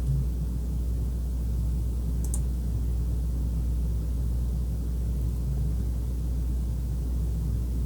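Steady low hum with faint background hiss and no speech, with a single faint click about two seconds in.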